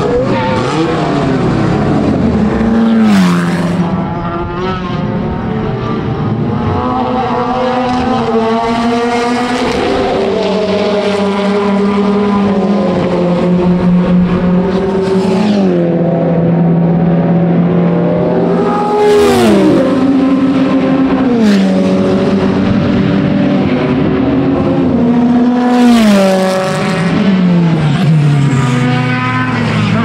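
Racing car engines running at high revs as several cars pass, one after another. Each time, the engine note falls in steps.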